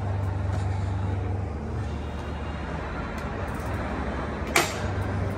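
A steady low mechanical hum, with a single sharp click about four and a half seconds in.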